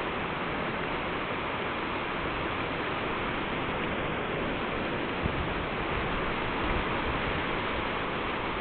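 High wind rushing through trees, a steady noise that holds at an even level.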